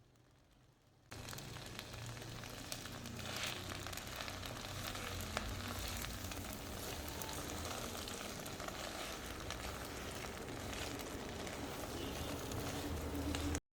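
Food sizzling in a hot frying pan: a steady crackle that starts suddenly about a second in and cuts off just before the end.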